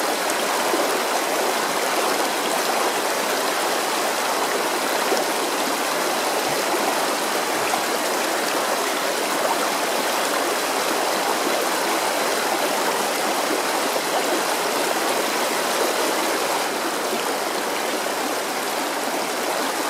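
Shallow, partly iced-over stream flowing and babbling steadily over stones.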